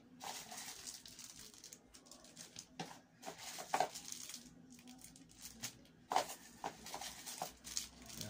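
Faint rustling and crinkling of clear plastic packaging, with light taps and knocks of a small cardboard box being handled. The loudest handling noises come about four seconds in and again about six seconds in.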